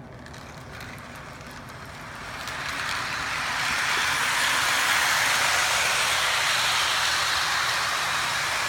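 Lionel O-gauge toy freight train rolling along its track. The rush of wheels and motor grows louder about two seconds in as the train comes close, and stays loud.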